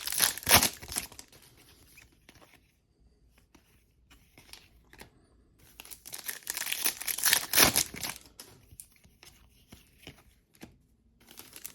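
Foil trading-card pack wrapper being torn open and crinkled, in two bouts: one right at the start and another from about six to nine seconds in, with faint light ticks in between.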